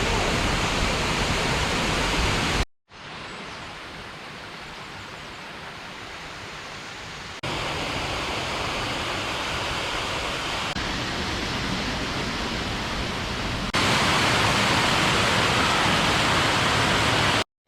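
St Nectan's waterfall: a steady rush of falling water. It cuts out briefly about three seconds in, comes back quieter, then jumps louder in steps, loudest near the end.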